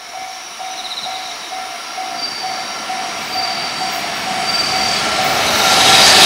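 Electric freight train approaching, its rumble and steady high motor and wheel tones growing steadily louder. A ringing tone repeats about twice a second underneath.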